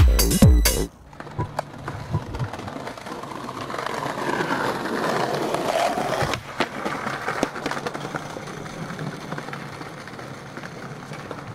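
Electronic dance music with a pounding beat that cuts off about a second in. Then skateboard wheels roll over stone paving tiles, growing louder around the middle and then fading, with a few sharp clacks.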